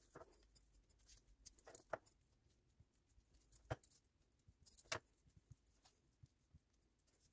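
Near silence with a few faint clicks and scrapes of a metal spoon scooping herb cream cheese from a plastic tub and spreading it on puff pastry.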